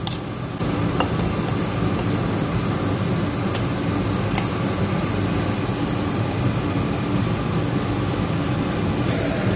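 Steady electric-motor hum, with a few light clinks of a spoon against a pan and bowl as food is scooped across.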